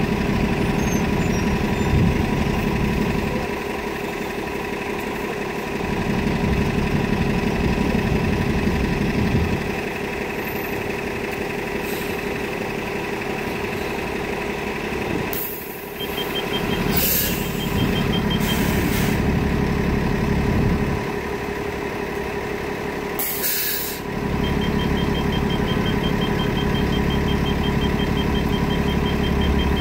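New Flyer Xcelsior XN40 city bus's CNG engine running and idling, with several short loud air-brake hisses from about halfway on. A rapid high-pitched warning beep sounds briefly after the first hisses and again, steadily, through the last quarter.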